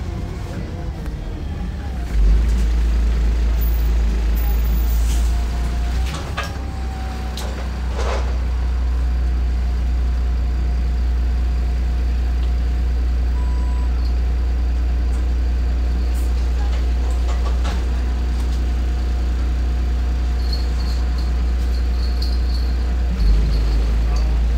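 Engine drone of a VDL SB200 single-deck bus heard inside the passenger saloon: a steady low hum that steps up about two seconds in and dips briefly a few seconds later, with a few short clicks and a thump near the end.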